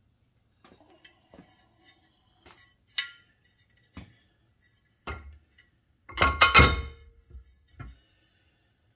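Metal parts clinking and knocking as a small wheel rim is handled on a manual tire changer. There are scattered light clinks, then a louder ringing clatter about six seconds in.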